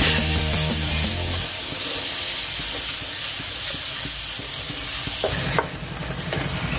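Chopped tomatoes sizzling in hot oil as they are stirred into a fried onion, ginger-garlic and spice masala with a spatula in a nonstick kadhai. The sizzle drops and softens a little past five seconds in.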